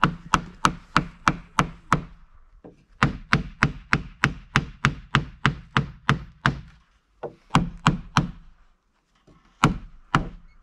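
Small hammer striking a wooden cross brace to drive it into a tight-fitting opening in a timber stair railing: sharp knocks about three a second, in four runs with short pauses, the last run only two blows.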